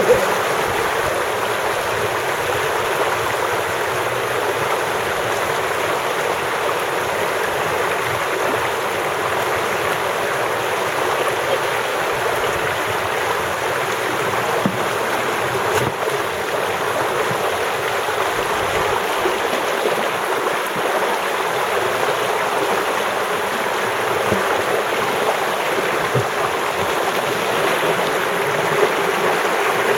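Creek water rushing steadily through and over a stacked cinder-block dam, a loud, even sound of flowing water.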